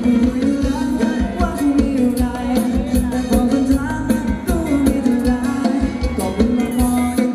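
Live band playing upbeat Thai ramwong dance music, with a steady drum beat under a singer and melody instruments.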